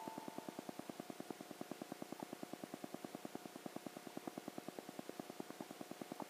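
Faint, steady rapid ticking, about ten evenly spaced pulses a second, each with a slight buzzy tone.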